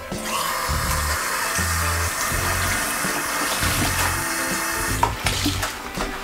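Bathroom faucet running into a sink, the water splashing steadily; it shuts off about five seconds in.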